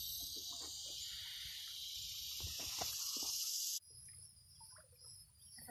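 A steady high-pitched chorus of insects shrilling in the trees. It cuts off suddenly about four seconds in, leaving only faint sounds.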